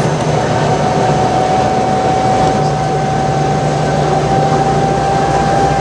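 Dexter T-300 double-loader commercial front-load washer in its final high-speed spin at about 600 rpm: a loud, steady whine over the rumble of the spinning drum. The machine is shaking a bit, which is put down to an unbalanced load.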